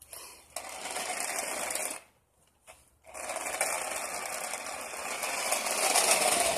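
Small electric motor and gears of a toy RC car whirring under throttle. It cuts out for about a second, then runs again and rises slightly in pitch near the end.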